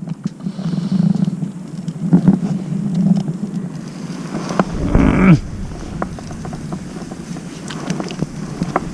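Small clicks and taps of metal chopsticks while eating grilled yellowtail collar, over a low hum. A short falling "mm" of enjoyment comes about five seconds in. Wind rumbles on the microphone from about then on.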